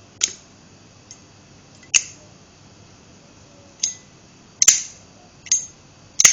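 Brushed chrome slim Zippo lighter flipped open and snapped shut repeatedly: six sharp metallic clicks, each with a short ring. Its click is weak, which may come from a weak cam kick, a short cam spring and the lid's small resonance space.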